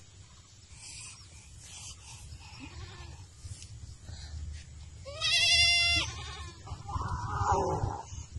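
A goat bleats once, about five seconds in: a single quavering call nearly a second long.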